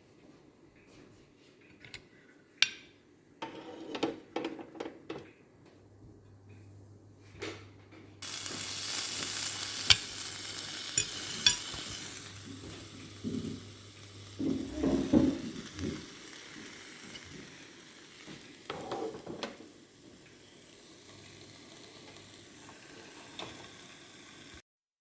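Food sizzling on the hot plancha plate of a raclette grill. A few light utensil knocks and clinks come first; about eight seconds in, a loud sizzle starts suddenly, then settles to a quieter steady sizzle.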